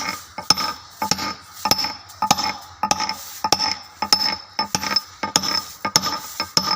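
Hand hammer and chisel pecking a stone surface to roughen it: about three or four sharp strikes a second, each with a short metallic ring.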